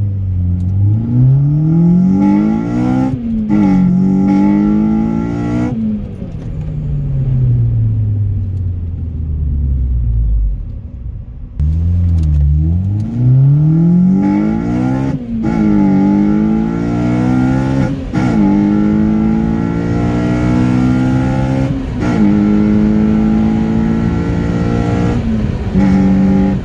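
Honda Civic EP3 Type R's 2.0-litre VTEC four-cylinder engine breathing through an open induction kit, accelerating hard through the gears: the revs climb and drop back at each upshift, twice, then fall away slowly for several seconds. A second run follows with about four climbs and shifts. The intake sound is a lot louder with the induction kit.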